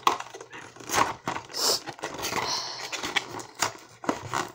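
Cardboard toy box being torn open by hand: irregular tearing and rustling of the card, with sharp clicks as the flap gives way.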